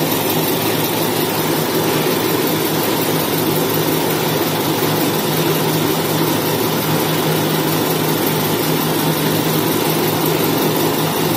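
Semi-automatic tissue maxi-roll cutting and making machine running: a steady machine drone with a constant low hum under a wide hiss.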